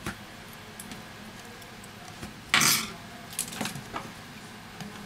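Small metal tools and a phone frame handled and set down on a workbench mat. A few light clicks, with one short, louder clatter about halfway through that is the loudest sound, then a few more clicks.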